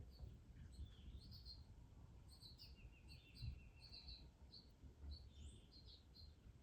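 Faint chirps and calls of several small songbirds at feeders: scattered short high chirps, with a rapid trill of repeated notes about two and a half seconds in.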